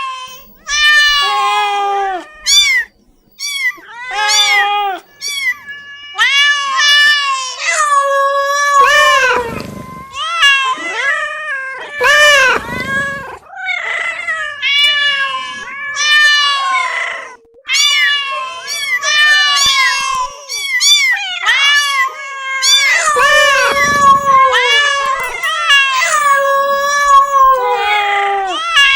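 Domestic cats meowing repeatedly, call after call with hardly a break. The drawn-out calls often overlap one another.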